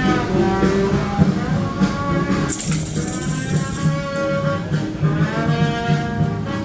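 Music playing loudly with a melody line over a steady percussive beat. A burst of hissing cuts in about two and a half seconds in and lasts a little over a second.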